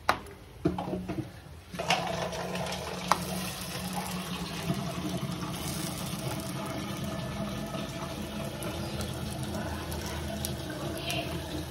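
Water running steadily from a tap, starting about two seconds in after a few sharp knocks.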